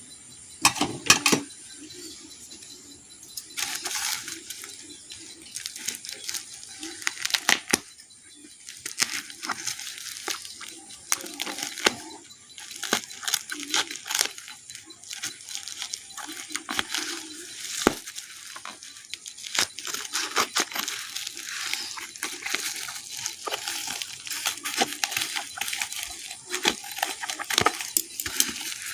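Parcel packaging being torn and opened by hand: irregular rustling, crinkling and tearing with many sharp clicks, and a loud burst about a second in.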